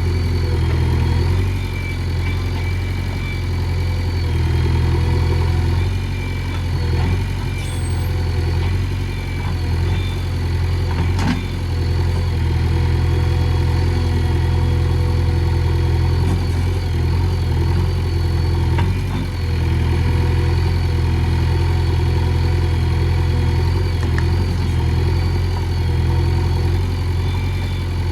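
JCB 3DX backhoe loader's diesel engine running steadily with a deep hum, its loudness dipping briefly a few times, with a couple of faint knocks.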